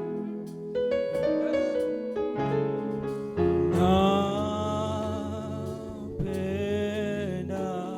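Gospel worship music: slow keyboard chords, joined about halfway through by long held sung notes with a slight vibrato.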